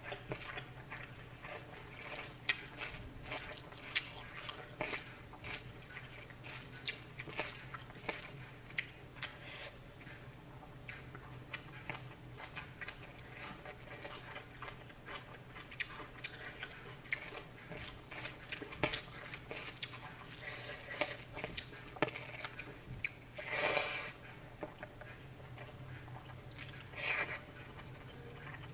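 Irregular small clicks, snaps and crunching of food being prepared by hand, over a steady low hum, with a louder crackling rustle about 24 s in.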